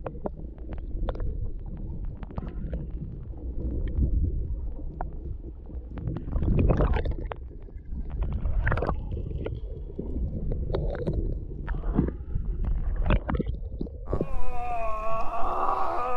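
Muffled low rumbling and gurgling of water heard through an underwater camera, with scattered small clicks and knocks. About two seconds before the end it cuts to the open air above the surface: wind hiss on the microphone and a voice exclaiming.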